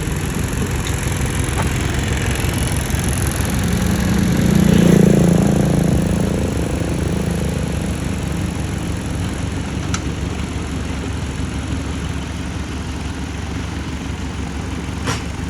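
Excavator engines running steadily, swelling louder for about two seconds around four seconds in before settling back.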